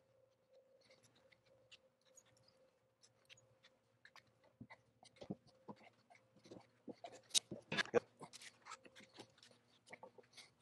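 Scattered light clicks and knocks of pecan tabletop boards, bar clamps and a glue bottle being handled during a glue-up, loudest a little past the middle. A faint steady hum runs underneath.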